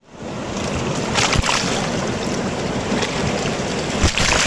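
Swollen river in flood: muddy floodwater rushing in a steady roar, with a couple of low thumps about a second and a half in and near the end.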